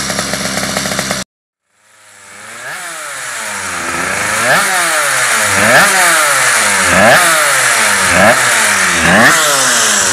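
Rotax 125 racing motorcycle's two-stroke engine running at a steady speed. The sound cuts out about a second in, then fades back in with the engine revved and let fall again, one blip roughly every second.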